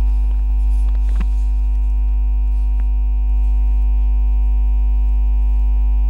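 Loud, steady low electrical hum, like mains hum on the recording, with a few faint steady tones above it and a couple of faint clicks about a second in.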